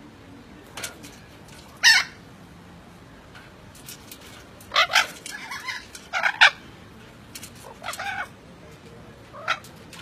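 Maroon-fronted parrots giving a string of short, rough calls and chatter. The loudest call comes about two seconds in, a burst of several calls falls in the middle, and one last call comes near the end.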